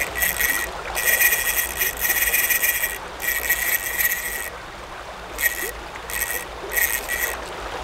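Small spinning reel on an ultralight ice-fishing rod buzzing in stop-start bursts, long ones at first and shorter ones later, while a hooked white bass is fought on 4 lb line. Creek water runs steadily underneath.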